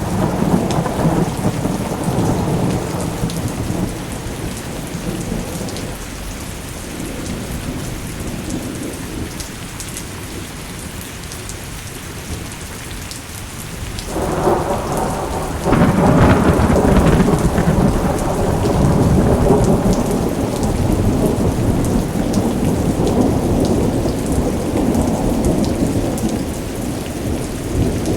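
Steady rain with rolling thunder. A rumble at the start fades after a few seconds, then a louder roll of thunder builds about halfway through and keeps rumbling.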